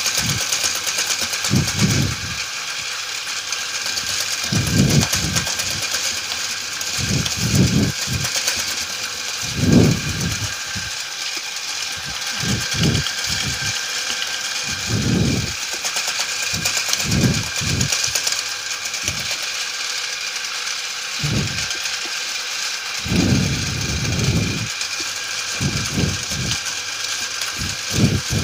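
Motor of a homemade pulley-driven mixing machine running steadily, its whisk churning a bucket of es doger batter. The motor gives a steady whine throughout, with irregular low thumps every second or two.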